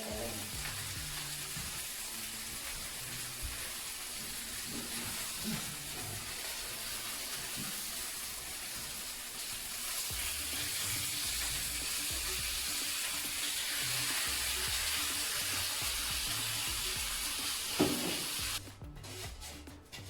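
Food sizzling steadily in a hot pan on the stove, cutting off abruptly near the end, with faint background music underneath.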